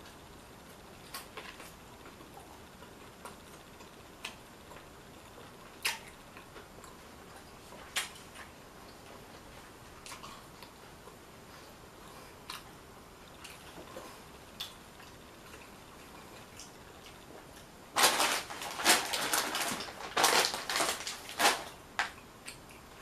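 Close-miked eating sounds: faint scattered mouth clicks and chewing, then near the end several seconds of loud crunching as a hard taco shell is bitten and chewed.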